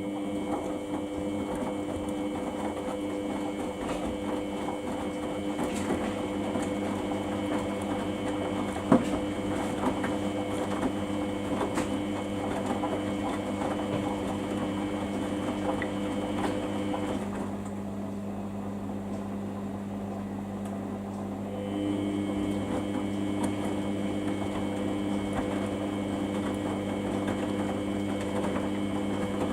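Samsung washing machine running with a steady motor hum and whine. Its higher tones drop out about seventeen seconds in and come back about five seconds later, and there is a single sharp click about nine seconds in.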